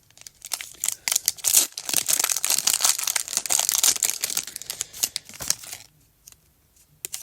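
Foil wrapper of a Pokémon TCG Evolving Skies booster pack being torn open and crinkled: a dense crackling of foil from about a second in that stops abruptly near six seconds.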